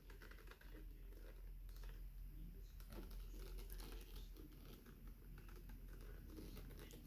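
Faint handling noise: scattered light ticks and rustles as a pistol holster is moved about.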